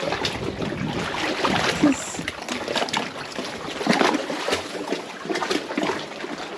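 Shallow seawater splashing and sloshing among rocks, with many small irregular splashes.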